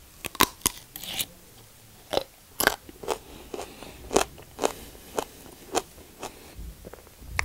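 Raw aloe vera leaf being bitten and chewed: an irregular series of sharp, crisp crunches.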